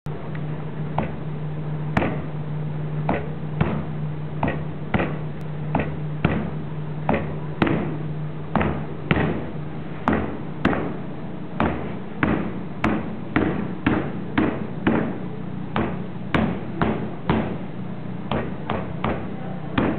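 Wooden-handled claw hammer striking sheets of paper on a table top, about two blows a second in a steady rhythm; the inked hammer head is stamping its print onto the paper.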